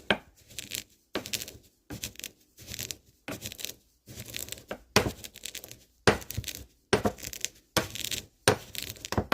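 A pestle grinding and pounding roasted sesame seeds in a mortar, in sharp grinding strokes about twice a second.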